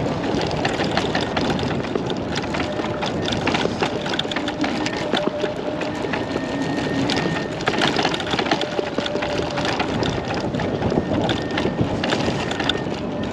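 Kaabo Wolf King GT dual-motor electric scooter ridden over rough ground: a steady rush of wind and tyre noise, with constant small knocks and rattles from the bumps, and a faint steady whine.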